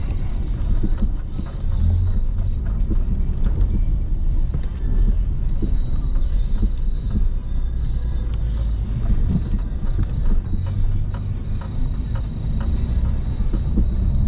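Car driving on snow-covered roads, heard from inside the cabin: a steady low rumble of engine and tyres with many small knocks and crunches.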